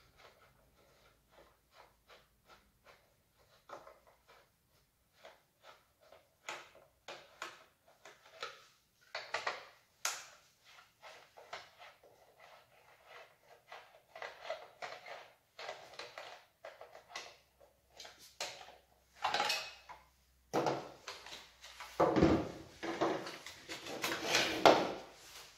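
Hands handling chainsaw parts: scattered light clicks and knocks, thickening into louder clattering and rattling over the last five seconds.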